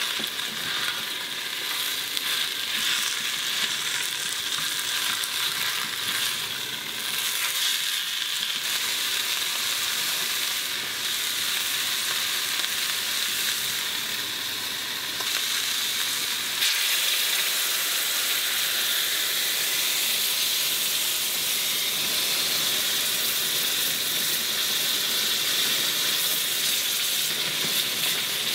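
Sliced mushrooms and onions sizzling in a small stainless-steel saucepan on a gas burner as a spatula stirs them. A little past halfway the red wine and demi-glace sauce from a frying pan go in, and the sizzling jumps louder and then holds steady as the sauce is stirred.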